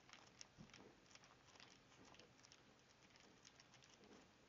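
Near silence broken by faint, scattered rustles and light ticks of hands handling something close by.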